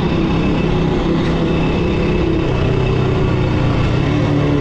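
Motorcycle engine running under way, heard from the rider's position with wind noise over the microphone. The engine note drops a little about halfway through as the bike slows.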